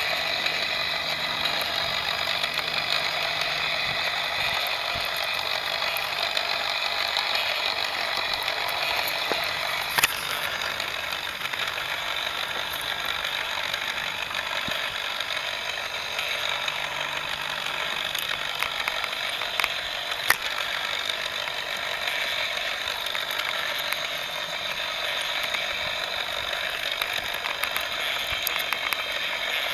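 Lego Technic 4x4's electric motor and plastic gear train whirring and clattering steadily as it drives over rough ground, with a sharp click about ten seconds in and two more around twenty seconds in.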